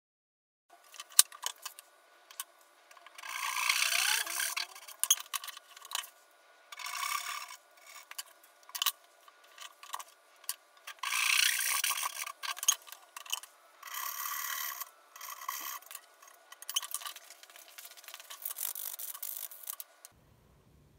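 Hand sanding of a small laminated ebony-and-walnut bench dog: rasping strokes of abrasive on hardwood in spells of a second or two, with light clicks and knocks of the wooden pieces being handled in between.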